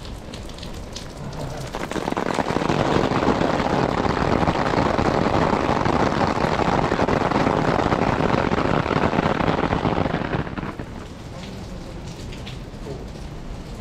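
Rain pattering on a clear plastic umbrella. From about two seconds in, a much louder, dense drumming lasts about eight seconds as water dripping from the shrine's roof eaves hits the umbrella, then it falls back suddenly to a lighter patter.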